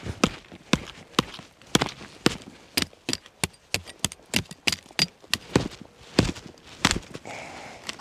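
A knife chopping at a wooden stick: an irregular series of sharp knocks and cracks, about two or three a second.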